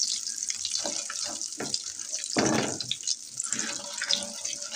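Whole spices, dried red chillies and curry leaves sizzling and crackling in hot oil in a pan while a spatula stirs them: a baghar (tadka) being fried for kadhi.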